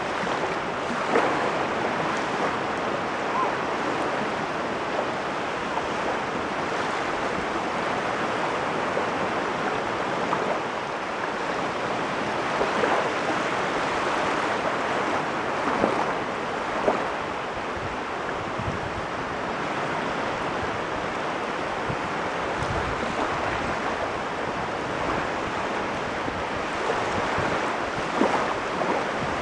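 Caspian Sea waves washing ashore in a steady rush, with brief sharper splashes now and then.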